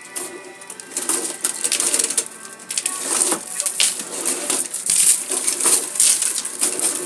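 Automatic car wash's soft-cloth curtains and beaded strands swishing and clacking over the car, heard from inside the cabin as irregular slaps and rattles that get louder about a second in.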